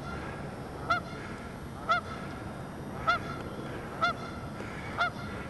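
Canada goose honking, a short call repeated evenly about once a second.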